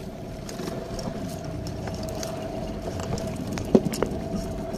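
Fishing boat's engine idling with a steady hum. Two sharp knocks come close together near the end.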